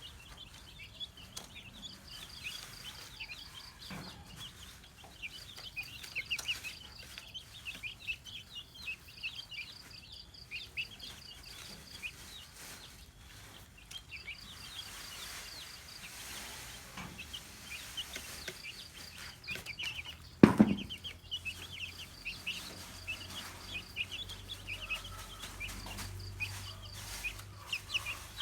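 A group of domestic hen chicks peeping continuously, many short high chirps overlapping. There is one loud thump about two-thirds of the way through.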